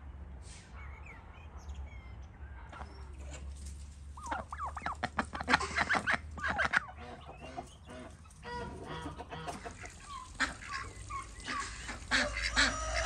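Farmyard poultry calling: short clucking calls, busiest from about four seconds in, over a steady low hum.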